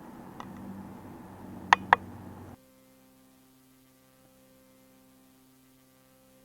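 Analog tape hiss with a low hum, broken by two sharp loud clicks in quick succession about two seconds in; then the tape sound cuts out abruptly, leaving only a faint, steady electrical mains hum.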